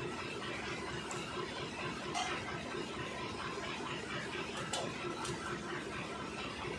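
Hands washing a greasy cast-metal tractor housing in a basin of diesel: wet rubbing and splashing with a few light clicks, over a steady background noise.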